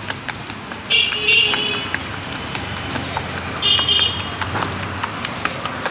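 Busy street noise with a low traffic rumble and scattered clicks and clatter, broken by two short bright ringing bursts, about a second in and again near four seconds in.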